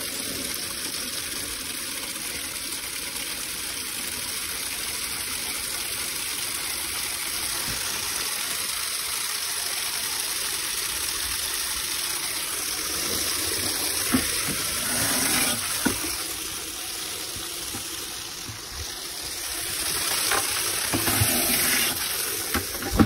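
Steady hiss of a water jet spraying, washing down a tractor, growing louder for a few seconds at a time in places.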